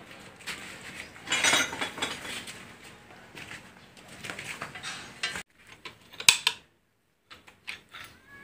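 Metal tools and engine parts clinking and scraping as the connecting-rod cap bolts of a Toyota Avanza 1.5 engine are loosened with a wrench. There is a sharp click about six seconds in, during a brief near-silent gap.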